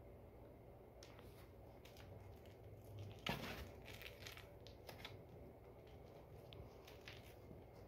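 Soft rustling and crinkling as a cat paws and bites a small hedgehog toy filled with silvervine and catnip. There is a louder crackling burst about three seconds in and a few faint clicks otherwise, against near silence.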